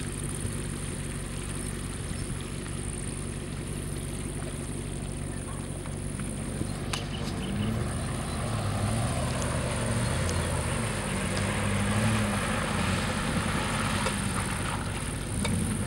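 Jeep Grand Cherokee ZJ's engine running as it drives off-road, getting louder as it comes closer, with the revs rising and falling in the second half.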